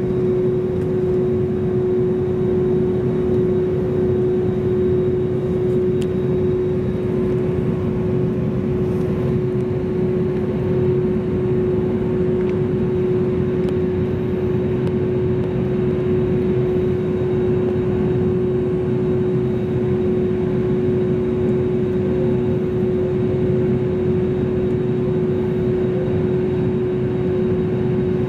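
Jet airliner engines at idle, heard from inside the cabin while the aircraft taxis: a steady rumble with one steady tone above it, neither rising nor falling.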